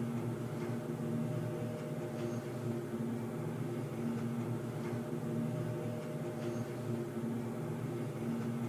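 Underground ambience: a steady low mechanical drone of several held tones, one of them swelling and fading every couple of seconds, over a faint hiss with a few faint ticks.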